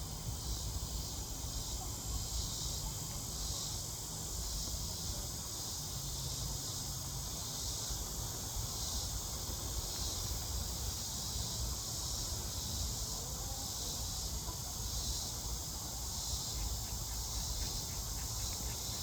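Steady high-pitched chorus of insects, such as crickets, buzzing and trilling and pulsing slightly, over a low rumble.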